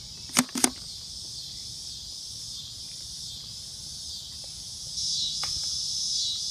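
A steady, high-pitched chorus of insects that grows louder about five seconds in. Two sharp clicks sound close together near the start.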